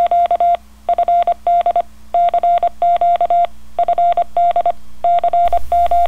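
Morse code: a single steady beep keyed on and off in quick groups of short and long elements, the kind of CW tone heard on amateur radio.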